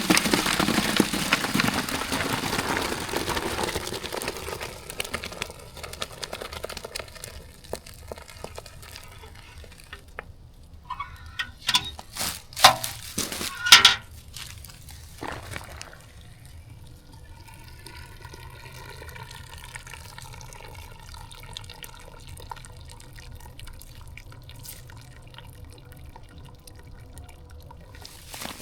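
Hot boiled-walnut stain poured from a metal bucket through a turkey-fryer basket to strain out the solids: a loud gush of liquid that tapers off over several seconds into draining and dripping. Several sharp knocks follow about halfway through.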